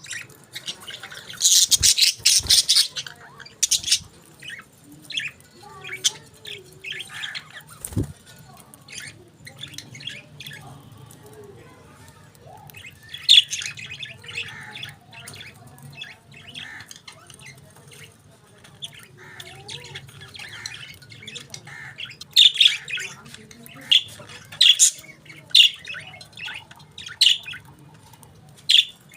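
Budgerigars chirping and squawking in short, high bursts, busiest near the start, in the middle and near the end, over a faint steady low hum.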